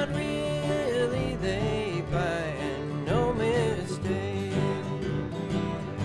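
Acoustic string band playing a slow country gospel tune, with acoustic guitars and other plucked strings keeping a steady rhythm under a lead melody that slides between notes.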